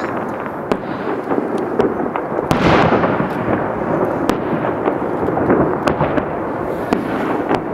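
Fireworks going off: a dense run of crackling pops and bangs, with a louder burst about two and a half seconds in.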